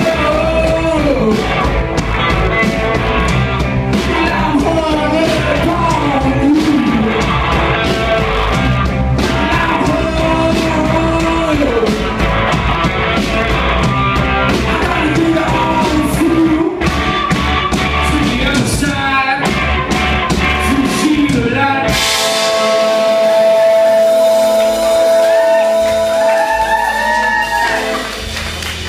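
Rock band playing live: singing over electric guitars, bass and drums. About two-thirds of the way through, the drums and bass drop out and one long note is held for several seconds as the song ends.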